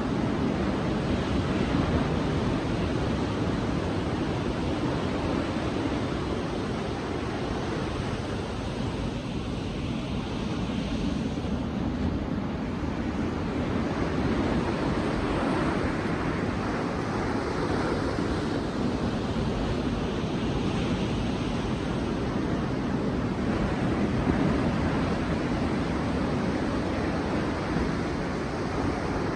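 Sea waves washing onto a beach: a steady rushing surf that swells and eases slowly, with no distinct breaks or crashes standing out.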